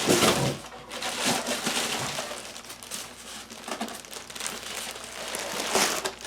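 Packaging crinkling and rustling as it is handled while a PC case is unboxed, in irregular surges.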